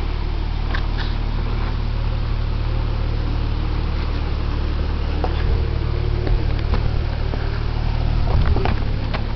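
Jeep Grand Cherokee's engine running steadily at low speed as it crawls over rock, with a few light knocks in the second half.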